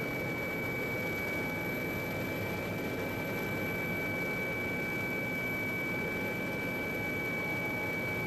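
A steady mechanical drone with a constant high whine, unchanging throughout.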